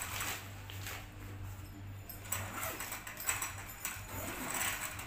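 Nylon fabric rustling and soft handling noises as a black waterproof cover and a long padded bag are moved and smoothed by hand, in scattered brief strokes over a steady low hum.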